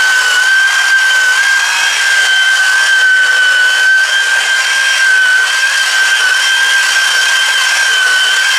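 Electric variable-speed rotary buffer with a wool pad running at steady speed against a car door's color-sanded paint. Its motor gives a steady high-pitched whine, with a hiss from the pad on the paint.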